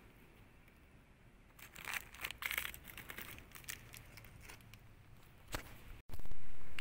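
Plastic wrapping of oyster-mushroom sawdust grow bags crinkling in short bursts as the bags are handled, mostly around two seconds in. Near the end, a much louder noise starts abruptly.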